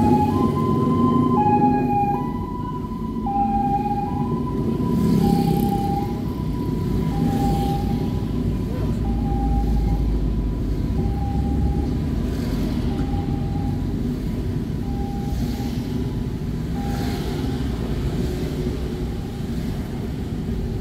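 Emergency vehicle's two-tone hi-lo siren, switching between a higher and a lower pitch about once a second and growing fainter as it goes on. Under it is the steady low rumble of traffic on the road.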